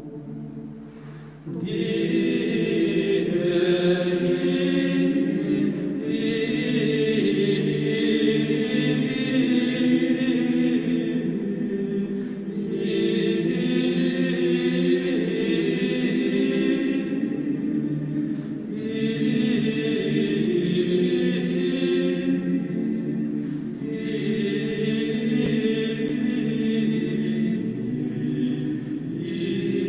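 Choir chanting in long held phrases of several seconds, with short pauses between phrases; the singing comes in fully about a second and a half in after a quieter moment.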